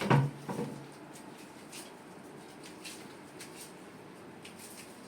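Two short sounds from a chiropractic adjustment in quick succession at the start, the first the louder, followed by faint light clicks.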